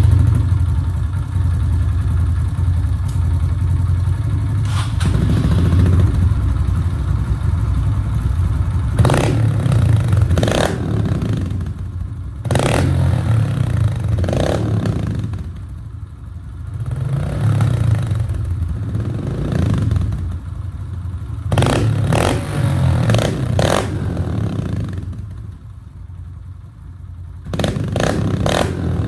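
Dirt bike engine running, revved in repeated throttle blips that rise and fall between spells of idle.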